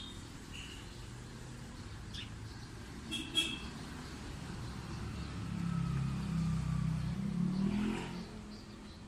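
A motor vehicle's engine passing by, growing louder for a few seconds and rising in pitch before fading near the end. There is a short sharp high-pitched sound about three seconds in.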